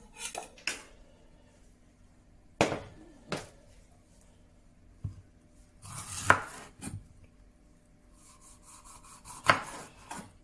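Kitchen knife cutting a red bell pepper on a bamboo cutting board: irregular sharp knocks of the blade striking the board, the loudest in a quick cluster about six seconds in.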